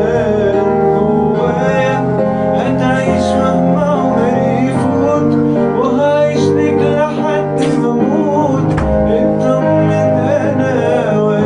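A man singing an Arabic song over instrumental backing, holding long notes that waver in pitch.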